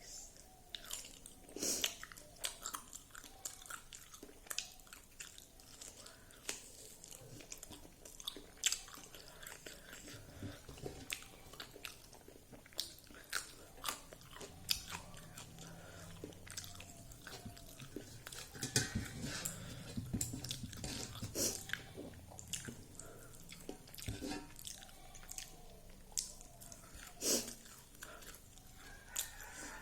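Close-up chewing and biting of fried dried pork and rice: irregular wet mouth clicks and crunches.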